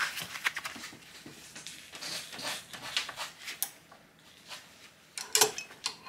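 Metal clicks and light clanks of a Knipex pliers wrench's jaws on a nut as the nut is worked tight on a bolt held in a vise. A quick run of small clicks in the first few seconds, then a louder cluster of clanks near the end.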